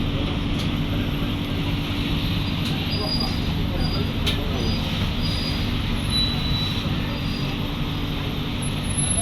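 Steady rumble of a moving vehicle, with a few short, thin high squeals over it.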